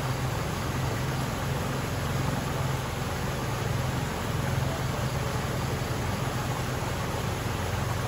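Swollen, muddy creek in flood rushing over a low rapid: a steady, unbroken rush of churning water with a deep low rumble beneath it.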